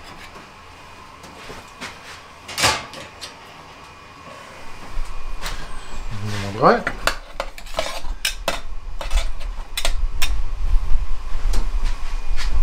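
Metal tongs clicking and clinking against a stainless steel tray and its wire rack as a rack of smoked ribs is lifted and set down, with a short rising squeak a little past the middle. From about five seconds in, a loud low rumble runs underneath.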